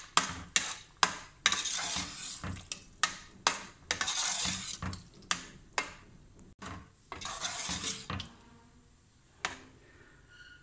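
Metal spoon stirring a thick creamy pea curry in a stainless steel pot: a run of sharp clinks against the pot with wet scraping between them. The stirring stops about 8 seconds in, with one last clink shortly after.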